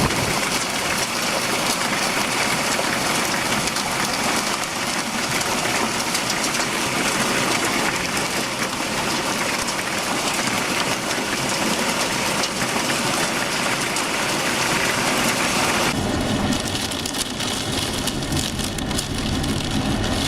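Heavy thunderstorm rain pelting down, a dense steady hiss. About sixteen seconds in it changes abruptly to a duller, lower rumble.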